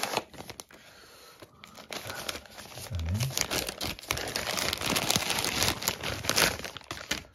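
Thin white wrapping crinkling and rustling as a camcorder is unwrapped by hand. It is quieter for the first two seconds, then turns into a busy run of crackles that is loudest near the end.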